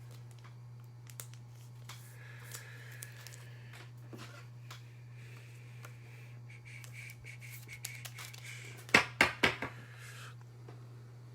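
Hands handling trading cards and plastic packaging: light rustling and scattered small clicks, with a quick run of four sharp clicks about nine seconds in, over a steady low hum.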